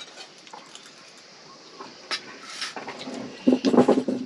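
Someone eating from a metal spoon and steel plate: a few soft mouth and spoon noises, then a short humming, cooing vocal sound in the last second.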